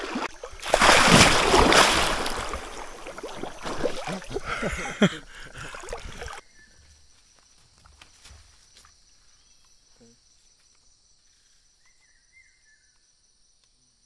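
A person plunging into a cold river with a loud splash, then water splashing and sloshing around them. About six seconds in it cuts off suddenly, leaving faint steady insect buzzing.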